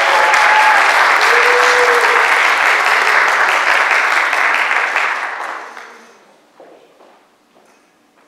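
Audience applauding, then fading out about five to six seconds in.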